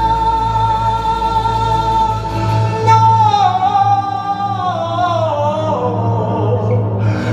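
Man singing into a microphone through a PA over backing music, holding one long note and then sliding down in a wavering, descending run.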